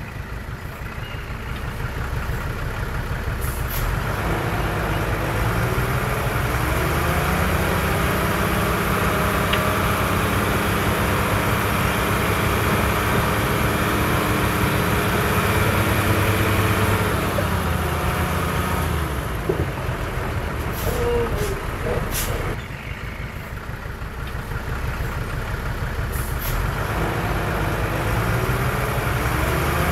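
Heavy diesel machine engine revving under load: the revs climb over the first few seconds, hold high and steady for about ten seconds, drop back, then climb again near the end. A few short clicks come in between.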